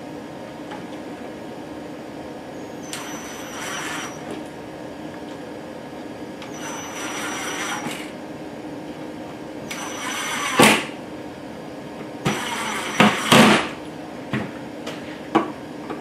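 Cordless drill driving screws into a plastic mounting bracket: four short runs of the motor's whine, one per screw, the later ones ending in loud sharp clicks. A few light knocks follow near the end.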